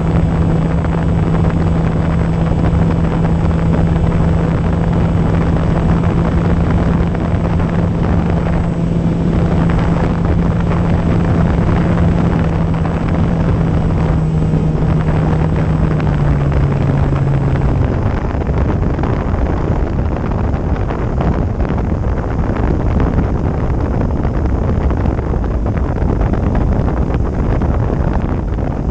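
Wind rushing over the microphone of the E-flite Opterra's onboard camera, with the steady hum of its electric motor and propeller. About two-thirds of the way through the hum steps down in pitch and then stops as the throttle is cut, leaving only the wind rush.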